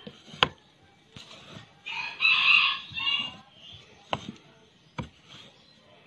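A rooster crows once, about two seconds in, lasting a little over a second. Around it come three sharp clicks from the steel spider bracket of a twin-tub washing machine's spin basket being worked onto its shaft.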